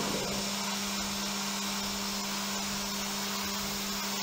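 Haas CNC mill running a finishing pass on a hardened 20CV steel knife blade with a PVD-coated end mill at 72 inches a minute: a steady spindle hum under an even, high hiss of air blast.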